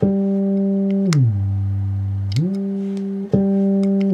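Bass guitar through a BOSS PS-5 Super Shifter pitch-shifter pedal. A plucked note is held, swept smoothly down an octave, held low, then swept back up. A second note is plucked near the end and starts to dip again.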